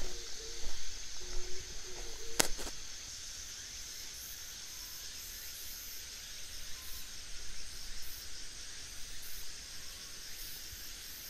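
A metal pipe punching breathing holes in black plastic mulch film, giving a few sharp pops in the first couple of seconds, the loudest at about two and a half seconds in. A steady, high-pitched insect chorus hisses underneath.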